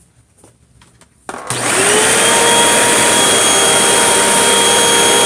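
Hoover WindTunnel 2 High Capacity Pet bagless upright vacuum switched on about a second in, its motor spinning up with a rising whine and then running loud and steady.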